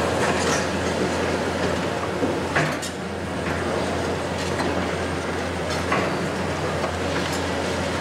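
Hitachi 870 XXL long-reach demolition excavator running steadily with a low engine drone, while concrete rubble knocks and clatters as it breaks and falls, with sharper cracks about two and a half seconds in and again near six seconds.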